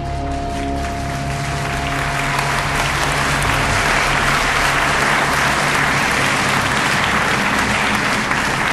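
Audience applause that builds over the first couple of seconds and then holds steady, while a piece of music fades out beneath it.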